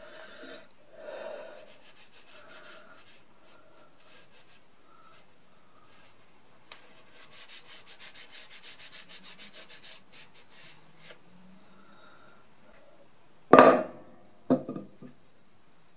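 A cloth rag rubbed back and forth over a small metal saw vise in quick, even strokes, about five a second for a few seconds, wiping it down after cleaning. Near the end, a wooden board is laid on the workbench with two knocks, the first the loudest.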